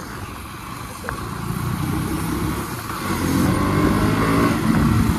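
KTM Duke 200's single-cylinder engine pulling as the bike accelerates on the road, rising in pitch and getting louder from about two seconds in, over wind and road noise.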